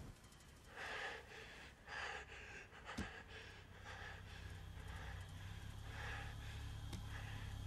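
A man breathing heavily in several short, gasping breaths, over a low steady hum. There is a sharp click about three seconds in and another near the end.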